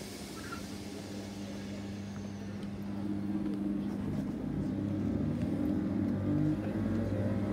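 Electric multiple unit pulling away from the platform: a steady traction-motor hum of several tones growing louder, with a whine starting to rise in pitch near the end.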